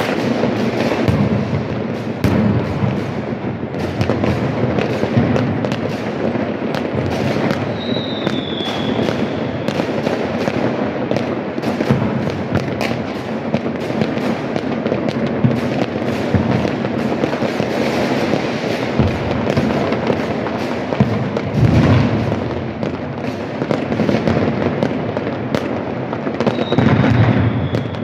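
Many fireworks and firecrackers going off at once across a city: a dense, continuous crackle of bangs with heavier blasts now and then. A short falling whistle about eight seconds in and again near the end.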